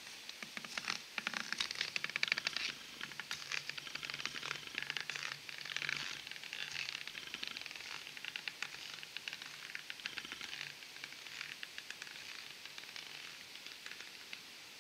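Stilt feet crunching step after step on a few inches of crunchy, compacting snow, the crunches fading as the walker moves away down the slope.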